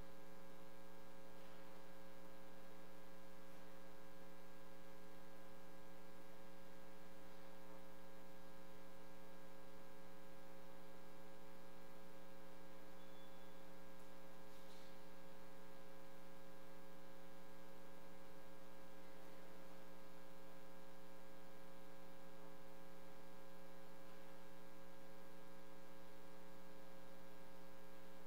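Steady electrical mains hum, a buzzy drone with a stack of overtones that does not change.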